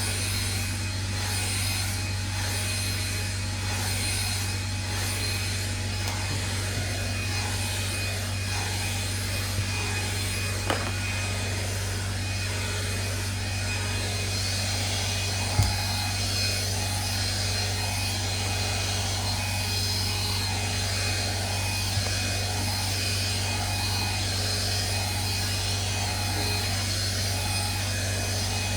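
Hair dryer running steadily with a constant motor hum and airflow noise, with a couple of brief knocks partway through.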